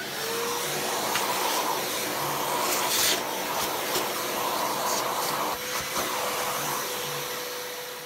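Vacuum cleaner running steadily, its hose nozzle held over a remote control's rubber button membrane to suck off dust. The motor winds down near the end as it is switched off.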